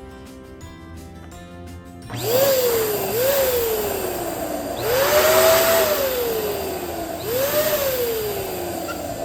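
Small electric balloon inflator blowing air in four runs. In each, the motor's whine rises sharply as it switches on, then sinks slowly as the balloon fills and loads the motor. Background music plays beneath.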